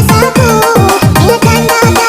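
Indonesian dugem electronic dance remix playing loud, with rapid falling bass notes about four a second under a bending melody line.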